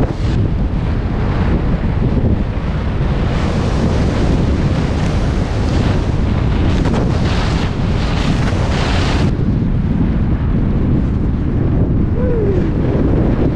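Wind buffeting an action camera's microphone at skiing speed, a loud, steady rumble. Over it is the hiss of skis sliding over groomed snow, which drops away sharply about nine seconds in as the skier slows.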